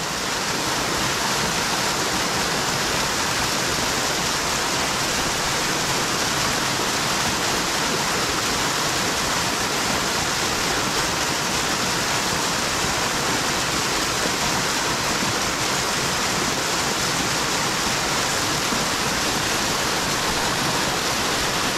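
A steep mountain creek pouring over a waterfall into the pool below: a steady, unchanging rush of white water.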